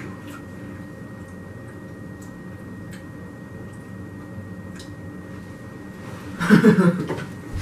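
Quiet small-room tone with a steady low hum and a few faint clicks. About six and a half seconds in, a person's voice sounds briefly.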